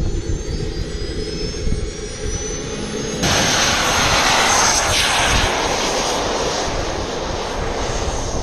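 Model jet turbines: first a high whine that slowly rises in pitch, then, from about three seconds in, a loud steady jet hiss from an RC jet running on the runway. Uneven wind rumble on the microphone runs underneath.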